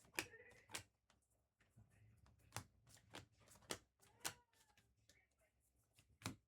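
Faint, irregular snaps and clicks of trading cards being flipped one by one off a freshly opened pack's stack, roughly one every half second to a second.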